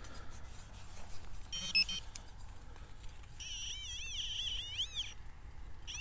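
Handheld metal-detecting pinpointer giving its electronic target alert: a short beep about one and a half seconds in, then a warbling tone that swoops up and down in pitch for over a second as the probe is worked into the hole over a buried lump of lead.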